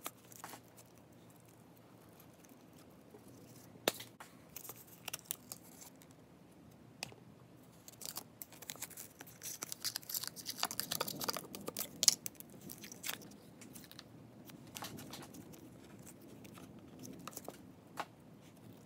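Slime being stretched, pulled apart and dropped into a plastic bin: scattered sticky clicks and crackles, thickest around ten seconds in, then softer.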